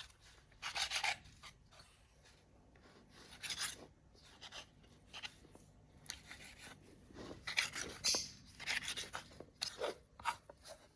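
Light, irregular scraping and rubbing as dough is worked and trimmed around a bowl that is turned round and round, in short scattered bursts, busier in the second half.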